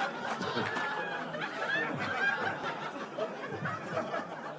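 Live comedy audience chattering and laughing, with a few scattered claps, dying down toward the end.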